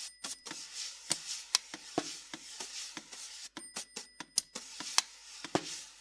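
Prepared snare drum, with a cloth over the head and a plastic cup standing on it, played with drumsticks: scattered sharp taps and clicks at uneven spacing, with a hissing, scraping rub sounding between them.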